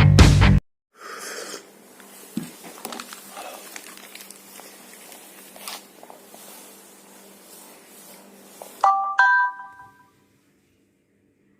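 A rock song that stops abruptly, then faint background noise with a steady low hum and a few clicks. About nine seconds in, a short electronic chime of a few rising notes sounds and ends in silence.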